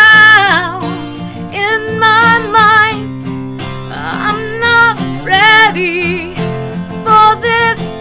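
Acoustic guitar strummed under a voice holding sung notes with vibrato, in a slow country-style song played live.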